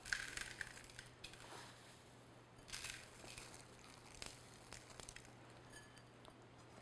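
Faint rustling and crackling of toasted coconut flakes being pressed by hand onto the frosted sides of a cake, with a few light ticks.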